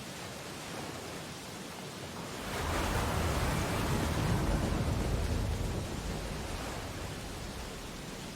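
Rainy storm ambience: a steady hiss of rain and surf, with a deep rushing swell that builds about two and a half seconds in, holds for a couple of seconds and fades away.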